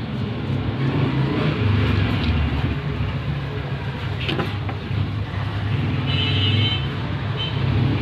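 Steady low rumble of motor traffic, with a brief high-pitched tone about six seconds in.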